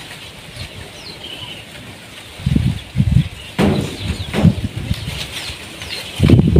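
A few short, falling bird chirps over a steady outdoor hiss, with several low rumbling thumps from about two and a half seconds in that are the loudest part.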